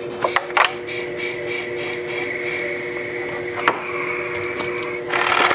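Compressed air hissing steadily from a 3D-printed 4cc compressed-air engine fed from a pressurised plastic bottle, with a few light clicks. Near the end it swells into a louder, rapidly pulsing rush of air.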